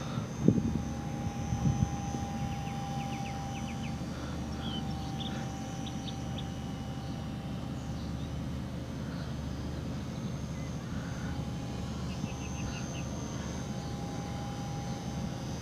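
Electric motor and propeller of a HobbyZone Super Cub S RC trainer plane whining in flight, a thin steady tone that fades and returns as the plane flies its circuits, over a steady low rumble. Two thumps sound near the start.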